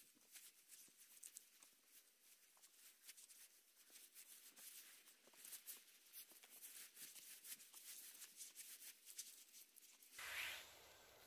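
Near silence with faint scattered ticks and rustling of mushrooms being handled in a plastic bucket, and a brief louder rustle near the end.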